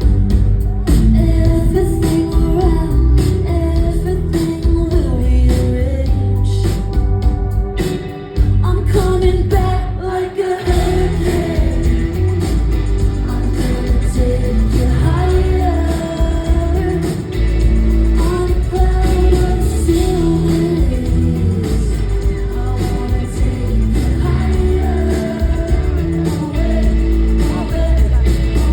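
Live band playing a pop-rock song: drums, bass and guitar, with a lead singer over them.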